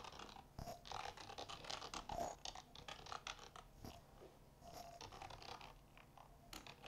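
Computer keyboard being typed on: a faint, irregular run of quick key clicks as a short sentence is typed out.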